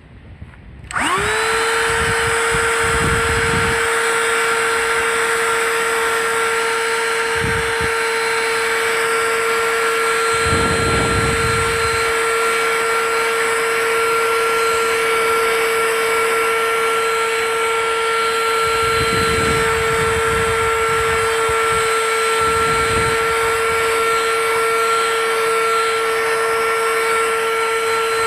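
Cordless portable vacuum cleaner switched on about a second in: its motor spins up quickly to a steady high whine and keeps running. Brief low rushing sounds come and go as the brush nozzle works the sofa.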